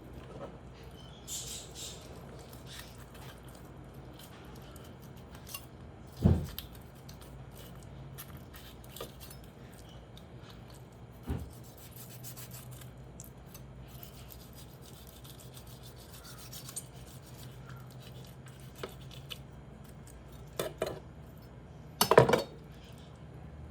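Knife cutting and scraping through a raw whole chicken, with a few sharp knocks on the cutting board, the loudest near the end.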